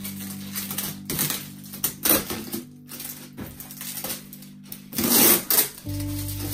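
Blue protective tape being peeled off a 3D printer's plastic casing in a series of short, uneven rips, the loudest about five seconds in, over steady background music.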